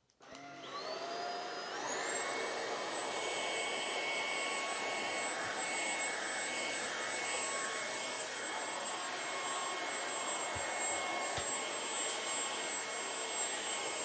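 Tineco A10 Essentials cordless stick vacuum running on max power. Its motor spins up over the first two seconds to a steady high whine as it sucks protein powder and crushed popcorn off a hardwood floor, with a couple of faint knocks about two-thirds of the way through.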